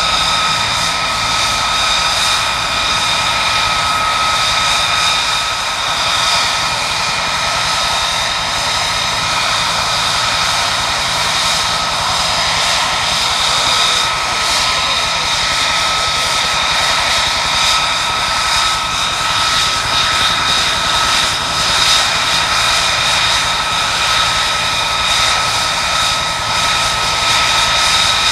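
Lockheed Martin F-35A Lightning II's single Pratt & Whitney F135 turbofan idling: a steady, loud rush of jet noise with a high whine held at fixed pitches.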